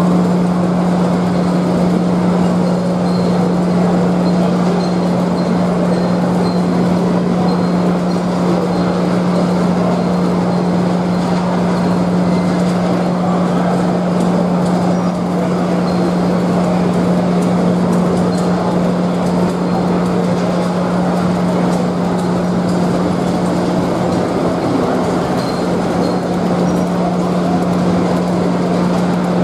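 Steady din of a busy exhibition hall at a model train show, with a constant low hum.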